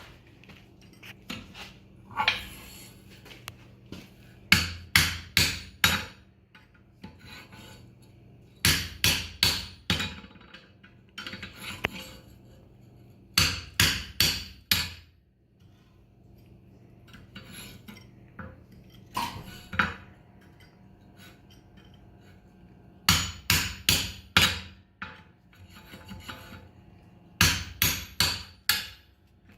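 Hand hammer driving a pritchel through the nail holes of a hot steel horseshoe on an anvil. The blows come in quick bursts of three to five sharp strikes, about six bursts with pauses between them.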